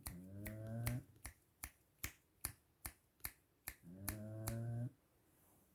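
Pug snoring: two drawn-out, pitched snores about four seconds apart, over a regular clicking of about two to three clicks a second that stops with the second snore.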